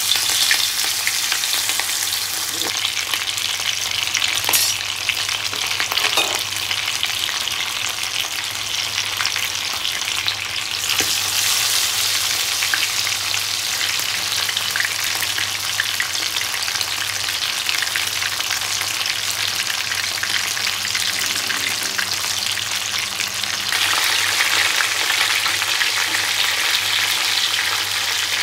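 Masala-coated pomfret fish sizzling and crackling steadily in hot oil in a frying pan, a little louder near the end.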